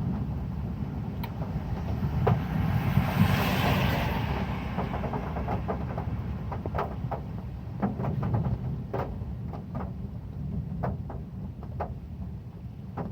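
Heavy rain on a metal roof: a deep, steady rumble with separate drops ticking sharply on the metal, and a brief surge of hissing rain about three to four seconds in.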